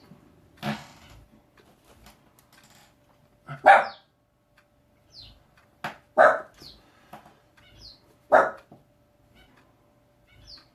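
A dog barking: four single barks, roughly two to two and a half seconds apart.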